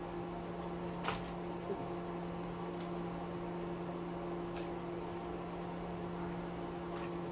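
A steady low hum with a few faint clicks of small parts and tools being handled during the teardown of an electric weed whacker.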